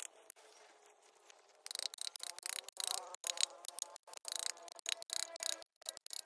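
A tool working the wood, a hissing scrape in quick, uneven strokes that starts about one and a half seconds in.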